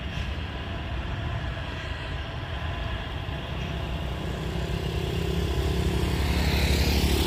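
Heavy diesel truck engine running steadily as a tank truck reverses down the hill, growing louder from about five seconds in.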